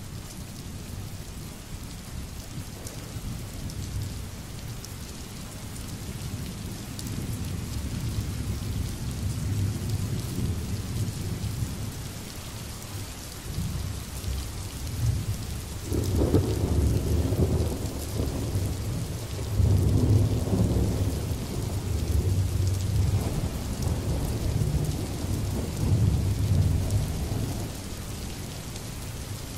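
Steady rain falling, with rolling thunder rumbling low underneath. A loud peal builds about halfway through and further rumbles follow every few seconds.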